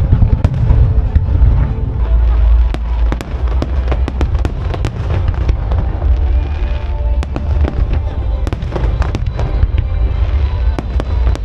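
Aerial fireworks going off in quick succession: many sharp cracks and bangs over a continuous deep booming rumble, with music playing under them.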